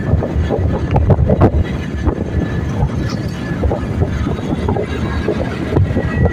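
Wind buffeting the microphone of a phone carried on a moving motorcycle, over engine and road noise, in irregular gusts.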